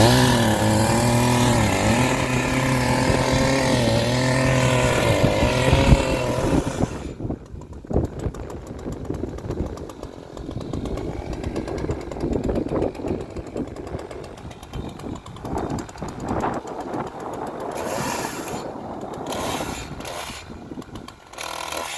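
Echo CS-590 Timberwolf chainsaw engine running at high revs for about six seconds, its pitch wavering as it works. It then stops, leaving a lower, rougher, uneven noise with scattered clicks.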